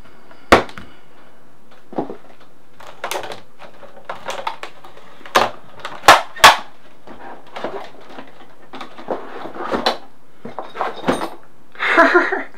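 A GoPro Karma drone and its controller being packed into their hard carry case: a series of sharp plastic knocks and clicks as the parts are set down and fitted in, loudest just after the start and twice about six seconds in, then the case lid being closed. A short vocal exclamation comes near the end.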